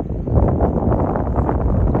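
Strong gusty wind buffeting the microphone: a loud, low, fluctuating rumble that swells about a third of a second in.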